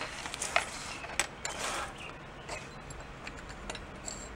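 Light clicks and clinks of small metal carburetor parts being handled on a workbench, with a short rustle of a plastic parts bag.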